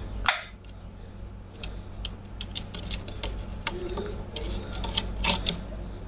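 Ringneck parakeet giving one short harsh squawk at the start, then a run of irregular light clicks and taps, with a brief low call about four seconds in.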